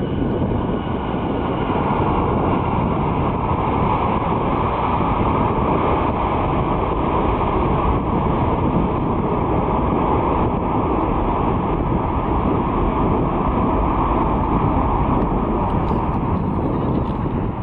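Twin jet engines of a LOT Polish Airlines Boeing 787 running at high power as it rolls down the runway: a loud, steady rumbling jet noise.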